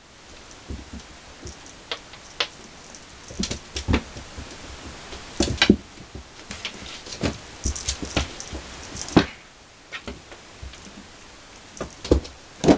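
A cat playing with a toy: irregular taps, knocks and light thumps, a few louder than the rest, over a steady hiss.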